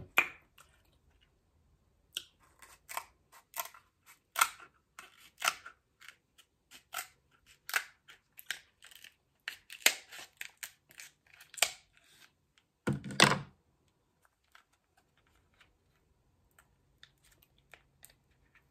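Scissors snipping and crunching through a crab leg's shell: a run of sharp, crackly clicks for about ten seconds, then one louder, heavier noise about thirteen seconds in, and only faint small handling noises after that.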